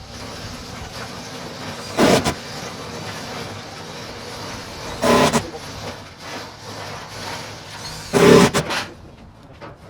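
Short bursts of a power tool, three times about three seconds apart, over a steady background noise.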